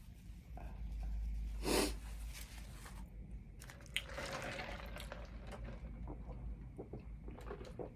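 Close-up chewing of chicken wings: soft wet mouth sounds with scattered small clicks, and one short breathy burst about two seconds in.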